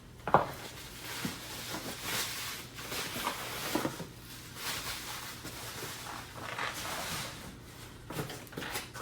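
Unpacking a shipped oscilloscope: packing material rustling and the contents being handled, in irregular scrapes and rustles, with a sharp knock just after the start.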